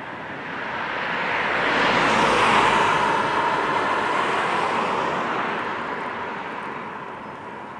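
A car passing close by, its tyre and road noise swelling to a peak about two and a half seconds in and then fading, over the faint steady tone of a distant Federal Signal Modulator 3012 outdoor warning siren sounding its alert signal.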